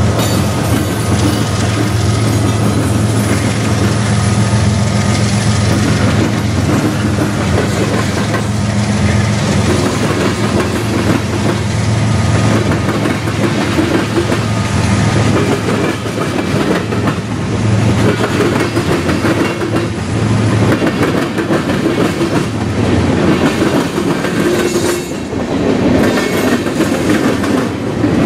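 Norfolk Southern freight train rolling past close by, its tank cars and hopper cars clattering steadily over the rail joints with a rapid clickety-clack. Under it runs the low drone of the trailing diesel locomotive, which fades out about two-thirds of the way through.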